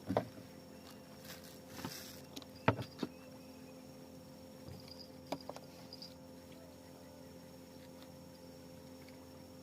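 Steady insect chorus with a high continuous trill, broken by a few sharp knocks and clicks, the loudest about two and a half seconds in.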